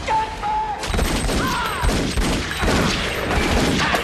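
Movie action-scene gunfire: a dense volley of rapid shots begins about a second in and keeps going, after a brief steady tone at the start.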